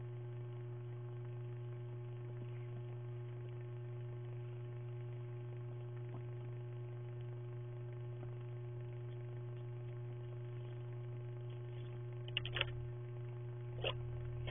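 Steady electrical hum from a security camera's built-in microphone, with two or three short sharp sounds near the end.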